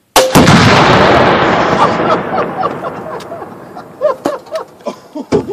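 Tannerite exploding target detonating: one sudden, very loud blast a moment in, its rumble and echo dying away over about three seconds.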